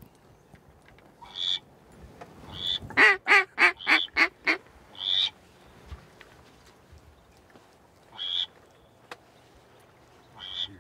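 Duck quacking: a few single calls, then about three seconds in a quick run of about six loud quacks, then more single calls spaced a few seconds apart.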